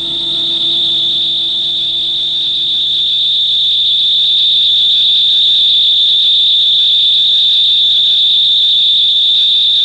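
A loud, steady high-pitched whine, a single tone that swells over the first few seconds and then holds, with a faint low hum underneath.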